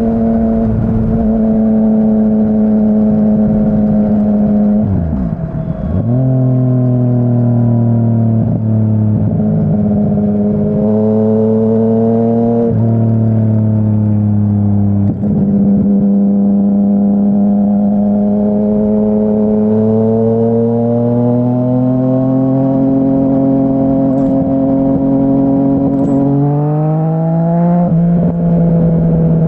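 A 2017 Yamaha Tracer 900's inline-three engine running through a Dominator HP3 full exhaust while riding. The engine note holds mostly steady, with several quick gear changes where the pitch dips or steps and then picks up again, and the revs climb sharply near the end.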